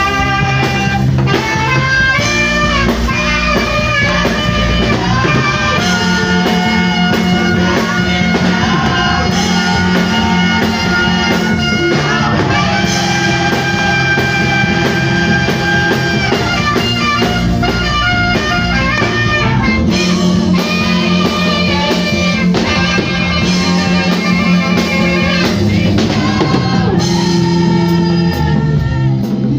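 Praise-and-worship band music: drum kit and guitar under a lead melody of long held, wavering notes, a saxophone playing the tune.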